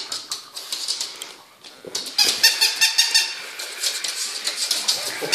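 A battery-powered walking toy dog running: its small motor and gears whir with a rapid, even clicking. It gets louder about two seconds in, once the toy is walking on the wooden floor.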